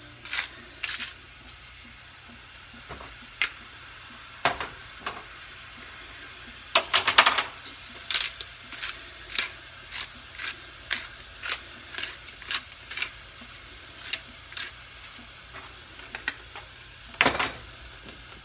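Kitchen knife cutting cooked chicken thighs into chunks on a cutting board. A few scattered knocks come first, then a run of even chopping strikes, about two a second.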